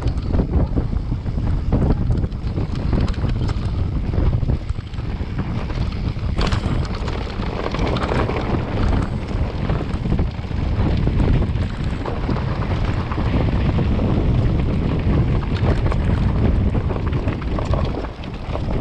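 Wind buffeting the microphone of a camera on a mountain bike at speed, over the rumble and rattle of the bike on rough ground. In the second half the tyres run over a cobbled stone track and the clatter is busier.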